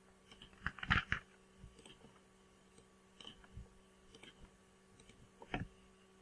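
Scattered faint clicks of a computer mouse and keyboard, a small cluster about a second in and single clicks later, over a faint steady electrical hum.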